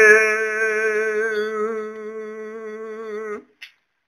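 A male voice singing a Gojri bait holds one long note with a wavering vibrato at the end of a line. The note fades and cuts off about three and a half seconds in.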